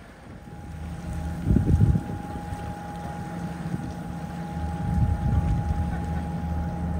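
Small car ferry Loch Striven's diesel engines running with a steady low drone and a held whine while its bow ramp comes down onto the slipway. A louder bump comes about a second and a half in.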